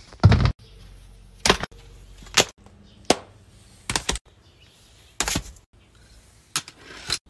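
A string of irregular sharp knocks and thumps, about eight of them, the loudest near the start: objects such as a laptop being picked up, moved and set down inside a car.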